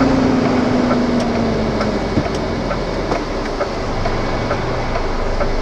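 Diesel engine of a DAF LF truck idling, heard from inside the cab, with a tone that falls slowly in pitch over about the first two seconds and faint regular ticking.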